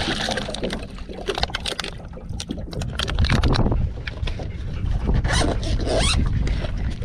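Water poured from a plastic bottle into a plastic bowl at the start, then rustling, scraping and clicks of gear being handled on the boat deck, over a low wind rumble on the microphone.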